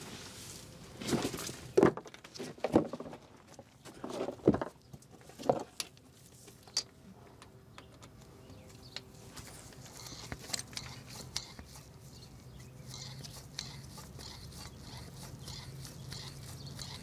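A hand grease gun worked on a heavy-truck driveshaft's new U-joints: a handful of loud metal knocks and clunks in the first few seconds, then faint scattered clicking while grease is pumped into the empty joints.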